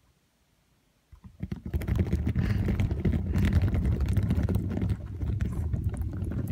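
Orbeez water beads jostling and clicking against one another in water: a dense run of small clicks over a low rumble that starts about a second in.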